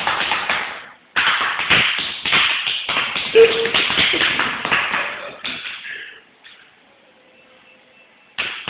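Rapid, irregular tapping and knocking, dense and loud, that fades out about six seconds in, then starts again abruptly near the end after a short near-quiet gap.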